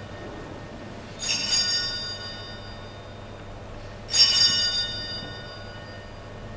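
Altar bells rung twice, about three seconds apart, each a short bright peal that dies away over about a second. They mark the elevation of the chalice at the consecration.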